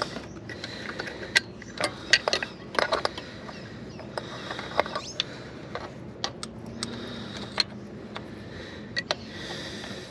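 Hand tools and small metal parts clicking and clinking irregularly while a carburetor is being unbolted from an engine, with the sharpest knocks about one and two seconds in.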